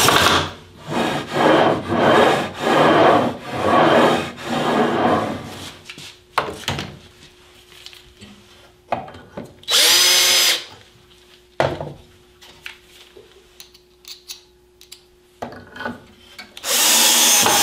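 Cordless drills pre-drilling pilot holes and driving screws into a wooden fence. Several spells of running come one after another: a burst at the start, a series of pulsing bursts over the next few seconds as a bit bites into the wood, a brief high whine of a drill motor about ten seconds in, and another burst near the end. Between them are clicks and knocks as the tools are handled.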